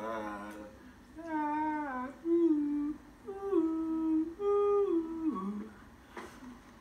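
A man humming a short tune: several held notes stepping up and down, ending on a falling note about five and a half seconds in.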